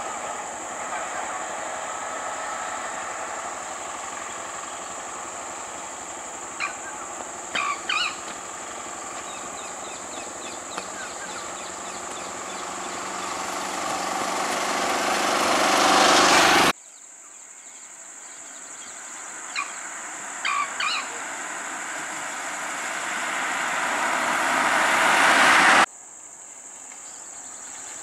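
Steady high-pitched drone of insects such as cicadas or crickets, with a few brief chirps. Twice, the rushing noise of an approaching vehicle grows louder and then cuts off suddenly.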